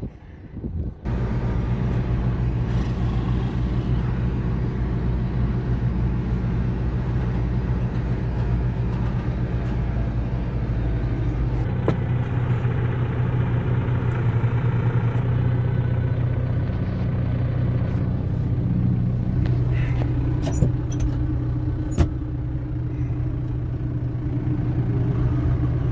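Tractor engine running steadily while towing a John Deere 13-foot disc harrow. The low rumble changes about halfway through, and there are two sharp knocks near the end.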